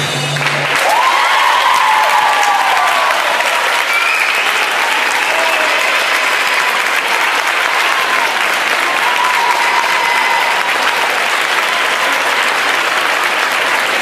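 The dance music stops just after the start, and an audience claps steadily with voices cheering and calling out over the clapping.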